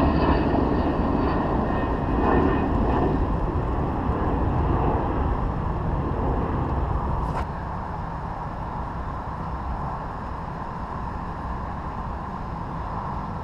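Steady low rumble of an airplane passing over, loudest in the first few seconds. A sharp click comes about seven seconds in, after which the rumble drops quieter.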